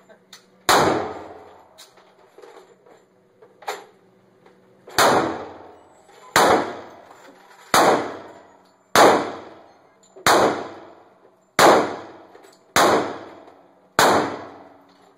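Bersa 9mm ProCompact semi-automatic pistol firing nine shots, each followed by a short echo of the indoor range. One shot comes near the start, then after a pause of about four seconds eight more follow at an even pace, about one every 1.3 seconds.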